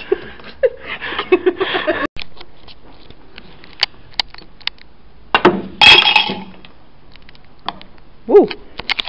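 Coins clinking against and dropping into drinking glasses on a snooker table: a few sharp clicks, then a loud jangle of coins on glass about six seconds in.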